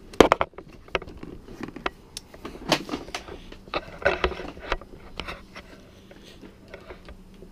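Clicks, knocks and rattles of a Windsor Sensor upright vacuum's plastic body being handled and moved, with a cluster of sharp clicks right at the start and scattered knocks after.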